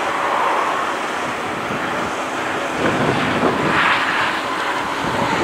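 Airbus A320neo's Pratt & Whitney geared-turbofan engines running with a steady jet hum as the airliner moves along the runway. Wind buffets the microphone, gustier in the second half.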